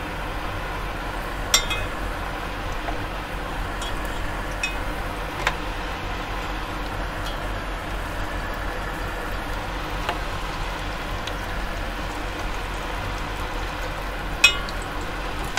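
Hot oil sizzling steadily under fried butternut squash slices in a grill pan and pot. A few sharp clicks of the metal spatula against the pans, the loudest about a second and a half in and again near the end.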